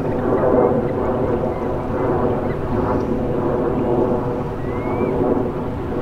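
Steady engine drone made of many even tones, holding a constant level. A faint short rising whistle comes about five seconds in.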